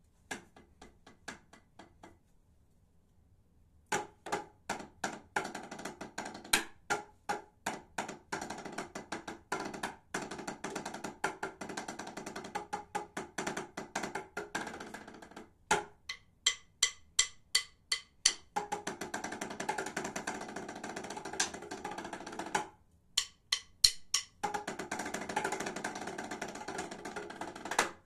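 Drumsticks playing a fast marching-percussion part on a set of rubber practice pads laid out like tenor drums: a few light taps, a short pause, then dense rhythmic sticking with sharp accents from about four seconds in, broken by two brief pauses later on.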